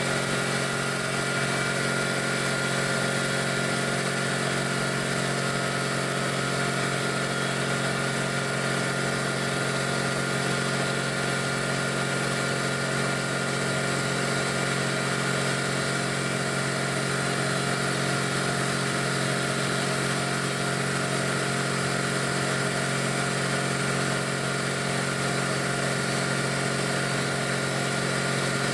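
Quincy two-stage, 80-gallon cast-iron air compressor, its V-twin pump driven by a 5 hp electric motor, running steadily. An even mechanical drone that does not change in pitch or level.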